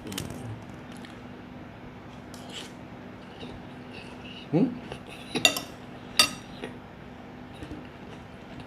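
Cutlery clinking against a dish a few times as food is taken and tasted, over a faint steady hum, with a short hum-like voice sound about halfway through.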